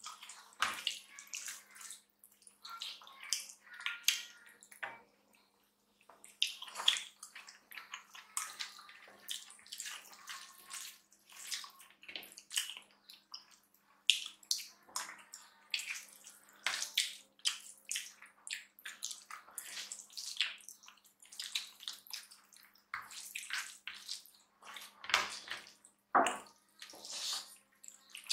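Close-miked wet eating sounds: rice and curry squished between the fingers and chewed with the mouth open. Many short, irregular wet squelches and smacks, with a brief pause about five seconds in.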